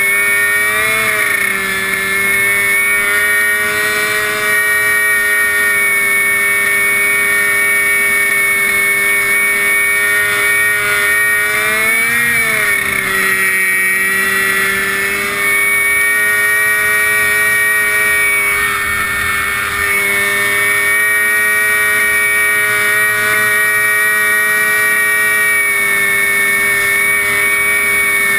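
Lawn tractor engine with a tall upright exhaust stack, running fast and steady while the tractor drives over snow, its pitch briefly rising and falling about a second in and again near the middle.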